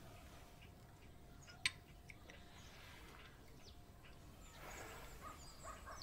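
Quiet rural room ambience with birds chirping faintly in the background, the chirps growing busier near the end. A single sharp click sounds a little under two seconds in.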